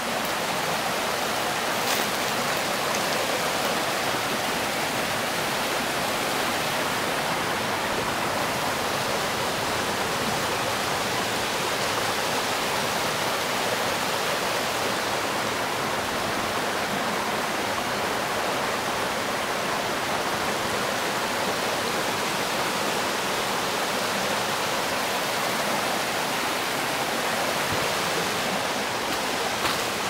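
Rocky mountain stream flowing over boulders in small cascades: a steady, even rush of water.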